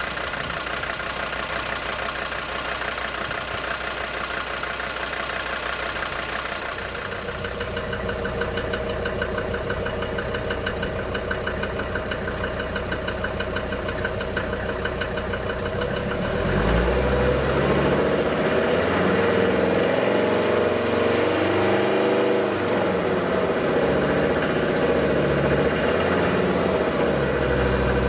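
DB29 diesel engine running with a rhythmic knock that the owner puts down to the injectors. About halfway through it is revved up and held at higher speed, its pitch wandering, then drops back near the end.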